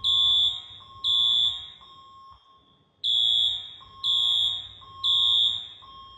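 Fire alarm sounding the temporal-three evacuation pattern: high, loud half-second beeps a second apart, two of them, a pause, then three more. A fainter, lower tone carries on in the gaps. This is the building's evacuation signal going off during a fire alarm test.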